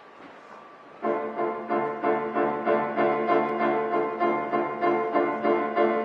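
Grand piano playing an accompaniment introduction: after about a second of faint hall noise it comes in with repeated chords in a steady rhythm, about three strikes a second.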